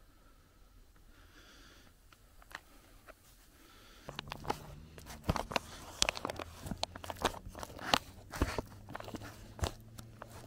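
A metal utensil scraping and stirring macaroni and cheese inside an opened foil-lined MRE pouch: a quick run of sharp clicks and scrapes that starts about four seconds in.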